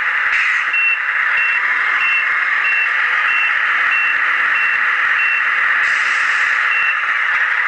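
Radio-controlled model truck on the move: a steady high electric whine from its motor and gears, over which a sound module sounds a run of short high reversing beeps, a little under two a second, that stop about five seconds in, with one more beep near the end.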